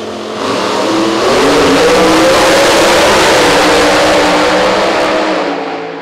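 Big-block Chevrolet V8 of the JCB GT backhoe dragster at full throttle on a drag run, its note rising in pitch. The sound swells over about a second, holds very loud, then fades near the end as it goes away down the strip.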